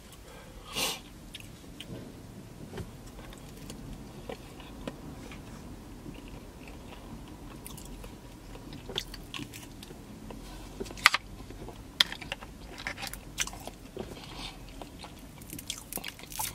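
Close-up chewing of breaded vegan chicken, quiet at first. In the second half come scattered sharp crunches and clicks as the fried piece is pulled apart and bitten.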